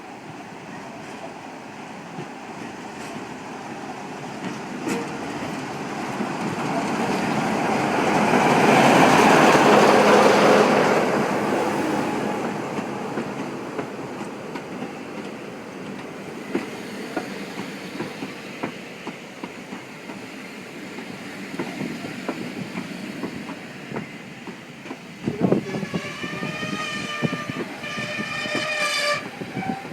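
A train passes, growing loudest about a third of the way through and then fading, with wheels clicking over the rail joints. Near the end a locomotive sounds its horn for about three seconds.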